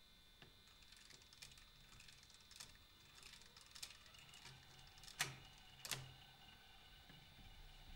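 Faint scattered clicks and light knocks of hands handling the mechanism of an Edison cylinder phonograph, with two sharper clicks a little under a second apart in the second half.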